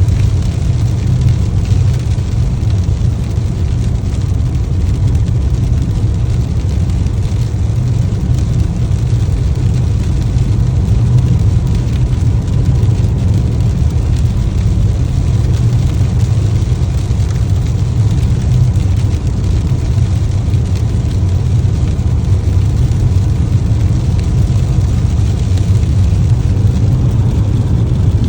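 Steady low rumble of a car driving at a constant pace, engine and road noise, with no changes or sudden sounds.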